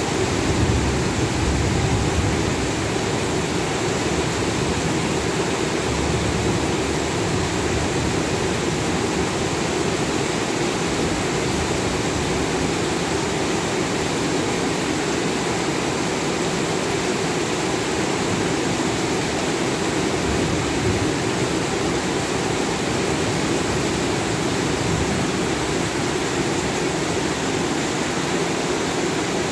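Heavy tropical rain pouring steadily on trees, roofs and the street, a dense unbroken hiss. A low rumble swells under it in the first couple of seconds.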